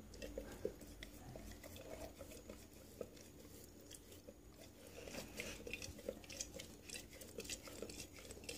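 A dog lapping coffee from a ceramic mug: faint, irregular wet laps and small clicks of tongue and muzzle against the mug, coming faster from about halfway through.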